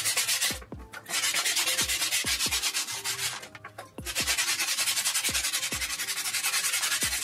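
P320 sandpaper rubbed by hand in quick back-and-forth strokes over a hardened cement surface, stopping briefly about half a second in and again around three and a half seconds in.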